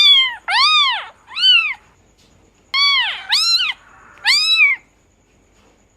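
Domestic cat meowing: six short, high meows in two groups of three, each rising and then falling in pitch.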